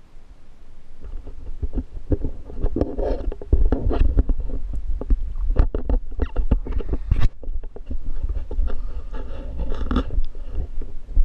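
Water sloshing and slapping against a GoPro's waterproof housing held at the waterline, with a low rumble and irregular sharp knocks.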